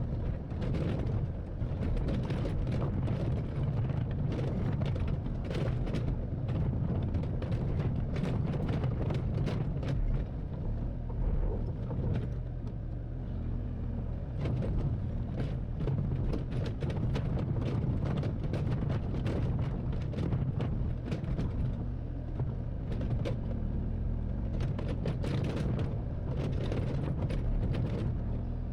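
Hydraulic excavator's diesel engine running steadily while digging soil, with many short knocks, clanks and scrapes of the bucket and machine over it.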